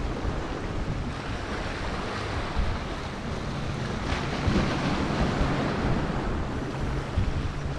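Sea waves washing and breaking against the rocks of a breakwater, with wind buffeting the microphone. The surf swells slightly about four to five seconds in.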